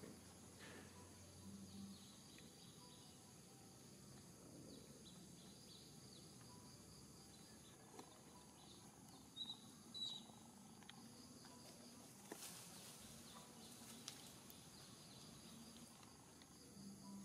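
Near silence: faint outdoor ambience with a steady high insect hum, two short faint chirps about ten seconds in, and a few faint clicks.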